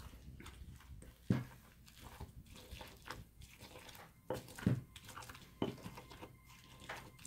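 Stone pestle grinding and pounding roasted chiles in a volcanic-stone molcajete: wet crunching and scraping, broken by irregular sharp stone-on-stone knocks, the loudest about a second in and again past halfway.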